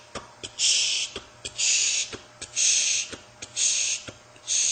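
Mouth-made imitation of a mitral stenosis heart rhythm: sharp clicks for the first and second heart sounds, then after a small gap a hissed 'shh' standing in for the mid-diastolic rumbling murmur, repeating about once a second.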